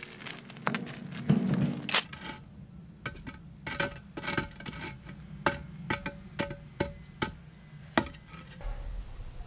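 A wheelbarrow rumbling over the ground, then hollow concrete blocks being set down on one another, a run of sharp knocks and clinks that stops near the end.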